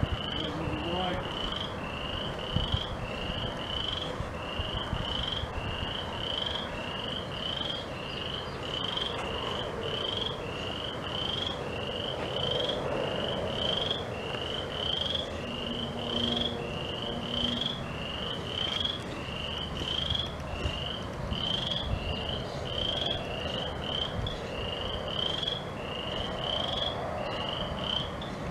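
A frog calling: a short, high, rising peep repeated steadily about twice a second.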